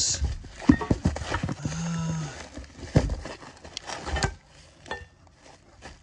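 Bubble-wrapped metal parts being handled in a cardboard box: plastic wrap rustling, with a series of sharp knocks and clunks over the first four seconds, then quieter.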